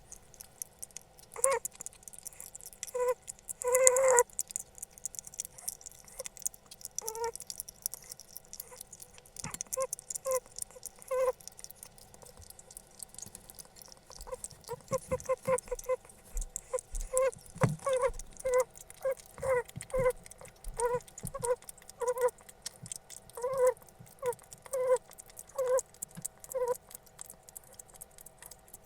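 Pet hedgehog making short squeaky chirps of pleasure over very tasty food. They come in irregular runs: a few spaced ones at first, a quick run about halfway, then roughly one a second.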